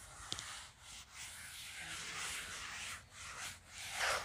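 Cloth wiped back and forth across a chalkboard, erasing chalk: a series of dry rubbing swishes, with the loudest stroke near the end and a brief click about a third of a second in.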